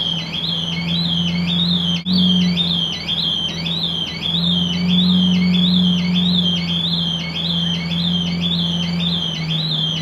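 A parked motorcycle's anti-theft alarm wails in a fast repeating rising tone, about two sweeps a second, set off by a passing supercar. Under it, the Lamborghini Aventador's V12 idles with a steady low rumble.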